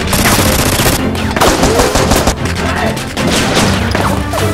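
Gunfire sound effects: rapid bursts of automatic fire, with a few falling whines mixed in and music playing underneath.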